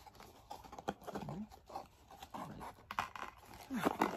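Fingers handling a small cardboard blind box: light taps, scrapes and rustles of thin card, with sharper taps near the end.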